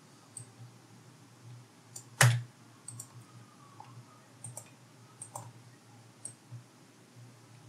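Scattered clicks of a computer mouse and keyboard as spreadsheet cells are selected and SUM formulas entered, with one much louder key or button press a little over two seconds in. A faint low hum runs underneath.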